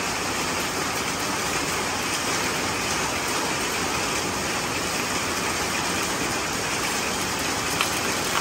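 Heavy rain falling steadily, a dense even hiss of water pouring and splashing onto wet concrete and puddles.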